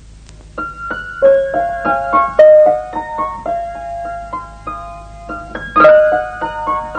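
Keyboard music: a short piano tune of single notes in a lively run, starting about half a second in, with a louder note near the end.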